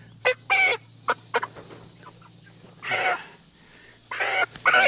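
A flock of meat chickens clucking, with short loud calls in a quick run near the start, a longer call about three seconds in, and more calls near the end.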